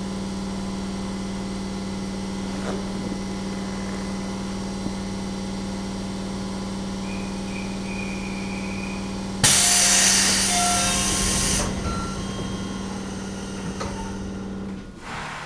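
Interior of a JR Central 211 series electric train car at a standstill: a steady low hum from its onboard equipment. About nine and a half seconds in, compressed air vents with a loud hiss for about two seconds, then fades, and the hum stops shortly before the end.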